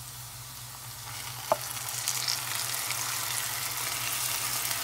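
Hot oil sizzling in a nonstick frying pan as fresh fenugreek (methi) leaves are pushed in from a bowl with a wooden spatula and stirred over potato and onion; the sizzle grows louder about a second in. A single sharp tap of the spatula comes about a second and a half in.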